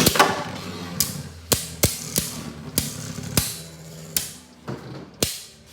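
Zest Achilles and Devil Excalibur Beyblade Burst tops spinning in a plastic stadium, whirring, with about eight sharp clacks spread through as they strike each other.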